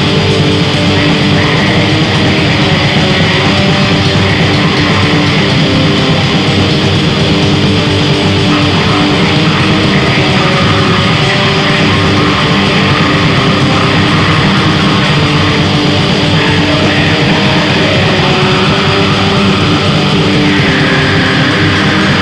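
Raw black metal: heavily distorted electric guitar in a loud, dense, unbroken wall of sound.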